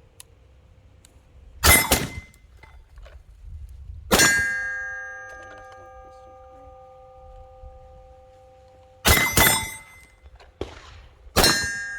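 Pistol shots fired at steel targets: a quick pair, then a single shot followed by a long ringing of the steel plate, then another pair and a last shot that sets the plate ringing again.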